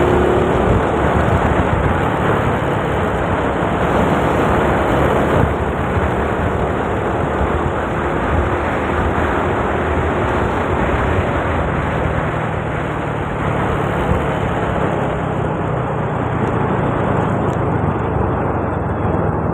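Riding a motor scooter: a steady rush of wind on the microphone over the scooter's engine running, easing a little near the end.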